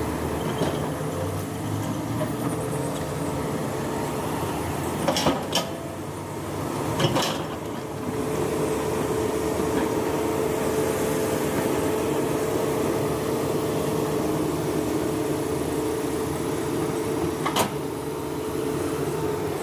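Hydraulic excavator running steadily as it works, with a held tone over the engine drone. A few sharp knocks or clanks come about five and seven seconds in and again near the end.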